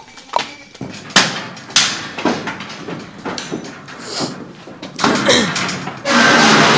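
Angora goat's hooves knocking and clattering on a stock trailer's wooden floor and steel panels as it is led in, a series of sharp thuds and rattles. Near the end a goat starts bleating loudly.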